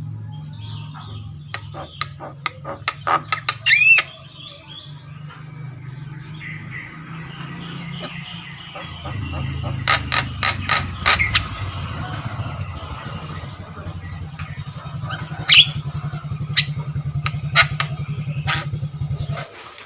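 Javan myna calling: a run of sharp clicks and short whistles, with a rising whistle about four seconds in and scattered chirps later. A steady low hum runs underneath and stops just before the end.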